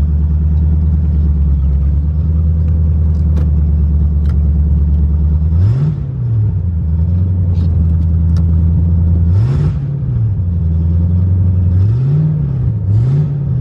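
1992 Chevrolet Camaro RS engine idling steadily, with the throttle blipped four times in short revs that rise and drop straight back, the last two close together near the end.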